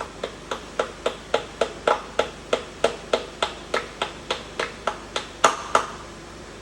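Rapid, even tapping of a hand tool on metal, about three and a half strikes a second, each with a short ring, ending with two harder blows near the end.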